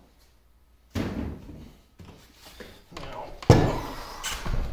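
Heavy cast-iron lathe apron being handled and tipped over on a wooden workbench: a sudden knock about a second in, scraping and handling noise, then the loudest thump about three and a half seconds in.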